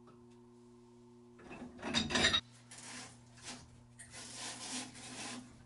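Metal-on-metal scraping and rubbing as wrenches turn a threaded fitting on the main water valve. The scraping is loudest for about a second near two seconds in, then comes back softer in short spells, over a steady low electrical hum.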